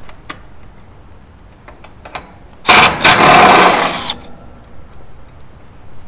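A cordless power driver runs for about a second and a half, backing out a screw that holds the capacitor in the condensing unit. A few light metal clicks come before it.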